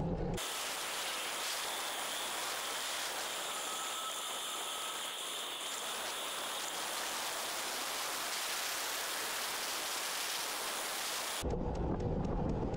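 An even, rain-like hiss that cuts in and out abruptly, with no low rumble under it. It is most likely the ride's wind and road noise in fast-forward.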